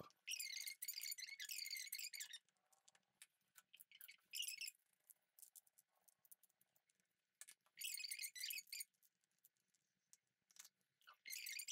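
Silicone spatula scraping wet salad out of bowls onto a serving tray: a few short, faint bursts of scraping and squelching, with small clicks between them.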